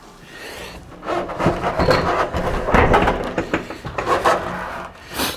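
Irregular scraping and rubbing with scattered light knocks, starting about a second in and easing off near the end.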